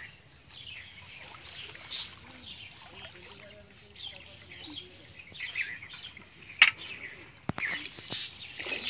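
Birds chirping again and again in the background, with a few sharp clicks in the last third, the loudest about two-thirds of the way through.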